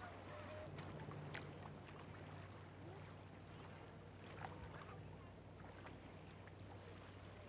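Faint water splashing from snorkelers swimming, a few soft splashes scattered through, over a steady low hum.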